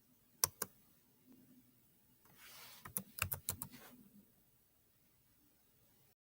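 Two sharp clicks about half a second in, then a quick run of keystrokes on a computer keyboard around three seconds in.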